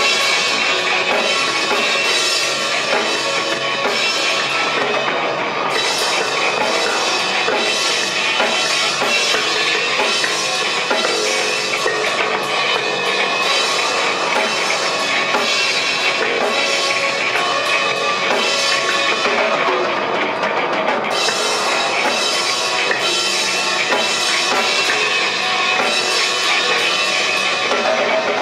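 A live rock band playing: a drum kit driving the beat, with electric guitar and bass guitar, steady and loud.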